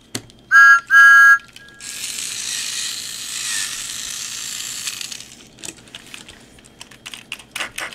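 A Thomas Trackmaster Steam Along toy engine's sound unit, through its small speaker, gives two loud electronic whistle toots and a faint third, then a steady hiss for about three seconds.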